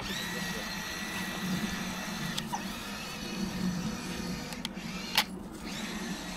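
Small electric motors of a remote-control amphibious toy tank whirring steadily as it moves through the water, with a few sharp clicks about two and a half and five seconds in.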